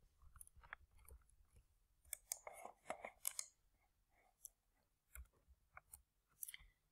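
Near silence: quiet room tone with a scattering of faint short clicks, several of them bunched about two to three seconds in.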